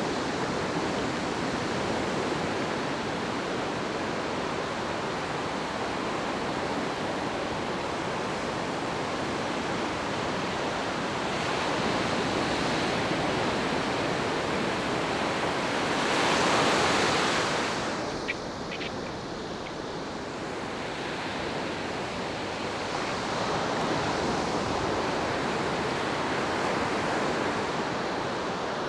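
Ocean surf washing up a sandy beach in a steady rush, swelling loudest with a wave a little past halfway, followed by a few faint short clicks.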